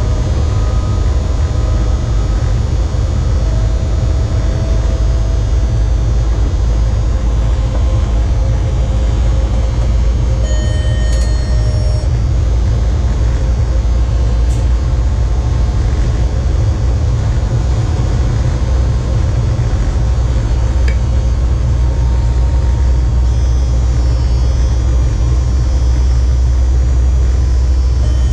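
Cab noise of a ČD class 362 electric locomotive running at speed: a steady low rumble of the running gear and wheels on the rail, with faint steady whining tones over it.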